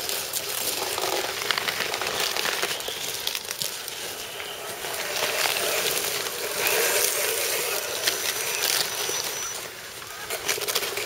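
Dry leaf litter crackling and crunching under the tyres of 1:10 scale RC crawler trucks as they drive past one after another, a dense run of small sharp clicks. A thin high tone sounds briefly past the middle.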